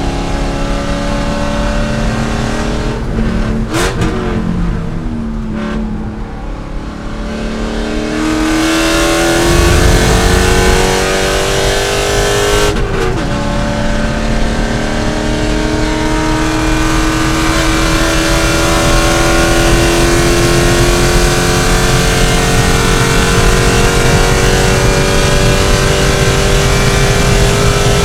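C5 Corvette race car's V8 at racing speed. It slows about 3 s in, with two quick shifts, then accelerates hard. It shifts up about 13 s in and keeps pulling, its pitch rising slowly to the end.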